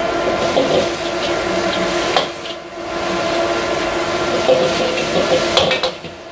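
Stir-frying in a wok over a high gas flame: food sizzling under a steady rushing of the burner, with a metal ladle scraping and knocking against the wok, sharp clinks about two seconds in and again near the end.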